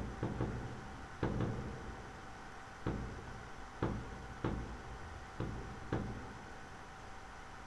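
A series of about eight light knocks at uneven intervals, ending about six seconds in, over a faint steady hum.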